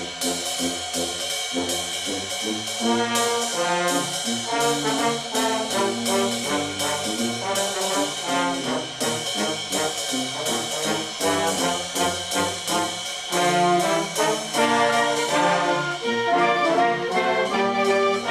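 Instrumental intro music led by brass (trombones and trumpets) over a steady beat.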